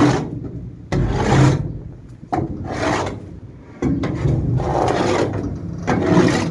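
A shovel scraping wet cattle dung along the floor of a livestock trailer during clean-out, in repeated strokes about one every second and a half.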